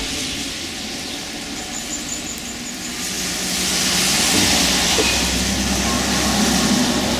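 Rain falling on wet pavement, a steady hiss that swells about three to four seconds in.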